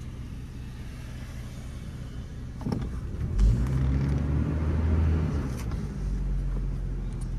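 Pickup truck engine running while driving, with a knock a little before the middle; the engine then grows louder for a couple of seconds before easing back.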